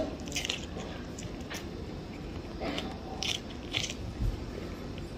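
A person biting kernels off an ear of corn on the cob and chewing, with several short, crisp crunches and mouth noises.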